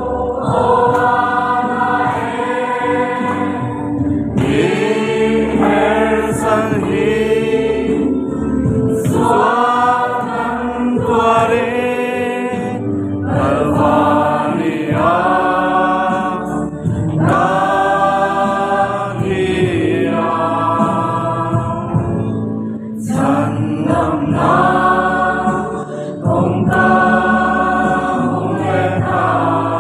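A mixed group of young men and women singing a Christian worship song together as a choir, in phrases a few seconds long at a steady loudness.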